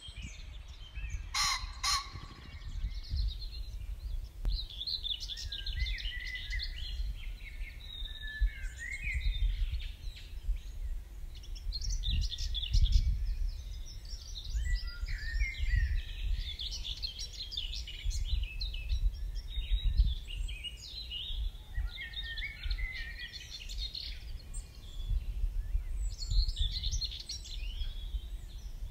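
Dawn chorus of many small birds singing and calling over one another, with wind buffeting the microphone as a gusty low rumble. Two short, sharp, loud sounds come about a second and a half in.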